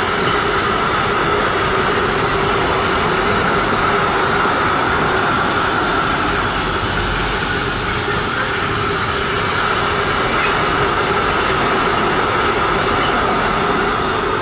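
Container freight train's flat wagons rolling past: a steady, loud wheel-on-rail rumble with a steady high ringing tone over it.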